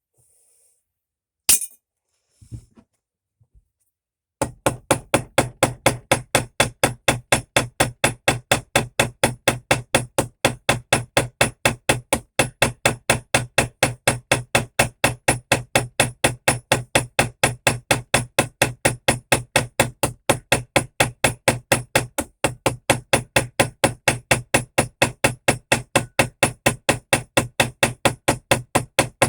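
A small hammer peening over a pin in a pocket knife's frame: after a sharp knock and a few small clicks, steady, even hammer taps start about four seconds in, about three a second, as the pin head is spread to lock the knife together.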